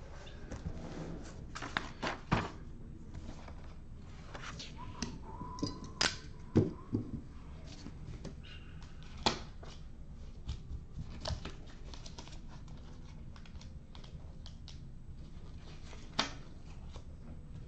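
Hands handling paper and a card box: scattered taps, clicks and light knocks, with a short faint steady tone about five seconds in.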